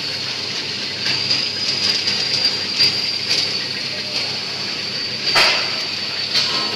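Stainless-steel popcorn seasoning drum rotating, the popcorn tumbling and rustling against the pan and the stirring blade, with a steady high whine. There are light clicks throughout and one sharper clack about five and a half seconds in.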